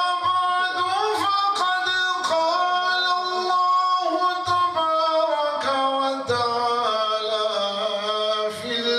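A man's voice chanting a religious recitation in long held notes that slide and waver from pitch to pitch, with no instruments.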